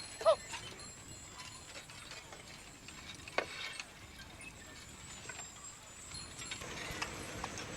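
Faint outdoor ambience with scattered light clinks and knocks, a brief loud pitched sound right at the start, and one short, sharp falling squeak about three and a half seconds in.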